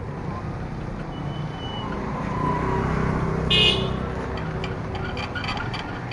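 Motorcycle engine running as it passes close by on the street, with a short horn toot about three and a half seconds in.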